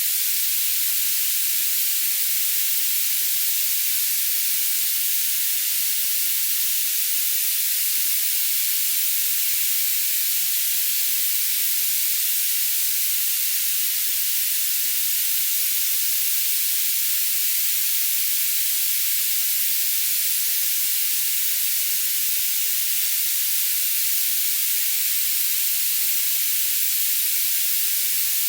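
Steady, high-pitched hiss of tinnitus-masking noise, with no low or middle sound and no change throughout.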